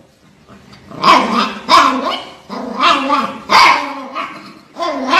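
A Yorkshire terrier barking and growling in a run of about five short vocal sounds with wavering pitch, starting about a second in.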